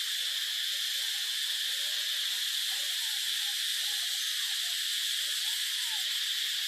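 Steady, high-pitched hiss of insects calling, unbroken throughout. Beneath it, faint short calls rise and fall in pitch a few times, most of them in the second half.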